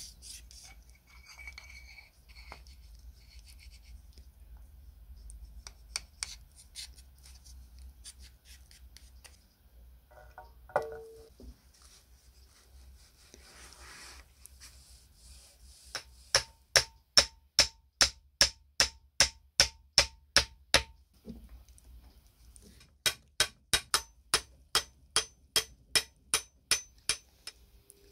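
Metal parts being handled and rubbed during reassembly, then two runs of sharp, evenly spaced mechanical clicks, about three a second, each lasting around five seconds.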